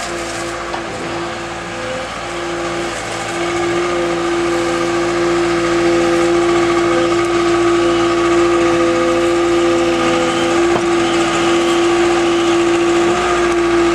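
Farm machine's engine running steadily with a strong steady whine, while the barn alleys are scraped of manure; it gets somewhat louder about five seconds in.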